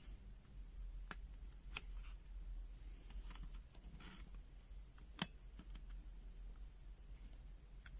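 Scattered light clicks and taps of small objects being handled, with one sharper click about five seconds in, over a steady low hum.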